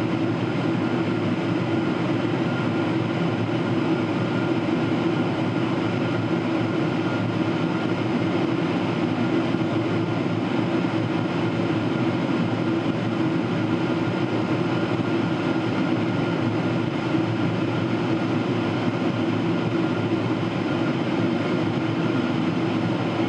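Steady cabin noise inside a Boeing 777-300ER descending, heard at a window seat: the even rush of airflow and the hum of its GE90 engines, with a strong low drone and a few faint steady tones above it.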